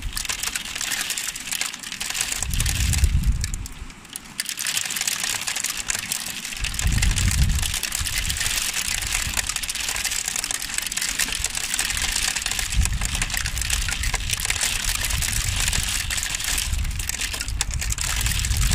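Hail coming down hard, a dense crackle of hailstones striking the ground, with gusts of wind rumbling on the microphone about two, seven and thirteen seconds in.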